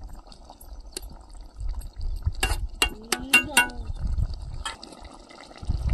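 Cooking utensils clinking: a quick run of four sharp, ringing clinks about two and a half seconds in, with single clinks before and after, over a low rumble.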